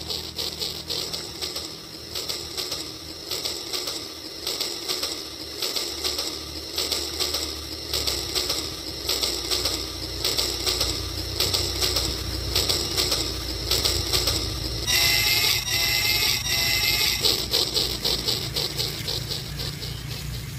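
Battery-powered toy train running on plastic track, its small motor and wheels making a fast, steady clicking rattle that grows louder as it comes closer. About 15 s in, a few short wavering high tones sound.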